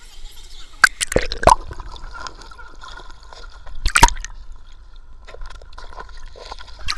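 Water splashing and sloshing as someone wades waist-deep through a canyon stream. There are several sharp loud splashes about a second in and again about four seconds in, with gurgling around the camera as it dips to the water surface.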